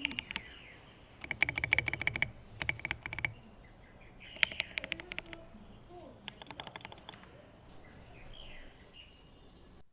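Typing on a Cyberboard mechanical keyboard with Pang Hu V4 switches and Domikey Mobius keycaps: four quick bursts of key clacks, each about a second long, with short pauses between. Faint chirps sound in the background.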